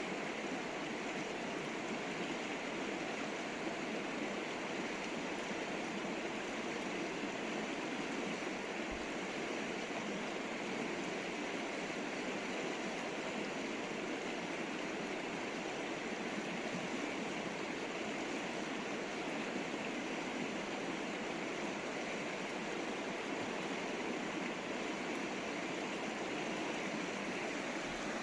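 River water flowing: a steady, even rush of water with no break.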